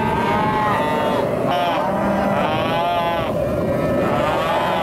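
A pen of calves bawling, one long call after another, often overlapping.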